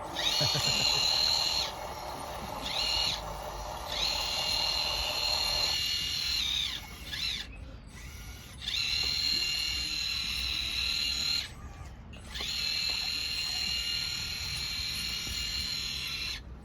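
Electric motor of a radio-controlled model machine whining in repeated runs of one to four seconds, its pitch gliding up as each run starts and down as it stops. A steadier lower hum cuts out about six seconds in.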